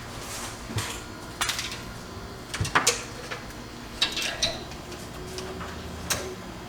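Irregular clicks and clinks of parts and tools being handled while the new ABS sensor cable is routed and clipped in, about six sharp ones spread unevenly over a few seconds.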